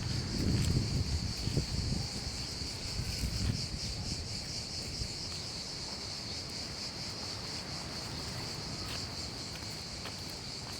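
Insects chirring steadily outdoors: a continuous high-pitched drone with a fast, even pulsing. A low rumble of wind on the microphone sits under it for the first few seconds.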